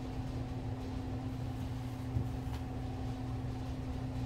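A steady low mechanical hum with a faint constant tone, with a light click about two seconds in.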